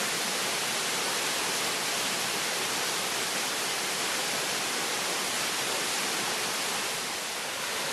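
Steady rush of the Temperance River's whitewater and falls, an even hiss with no breaks.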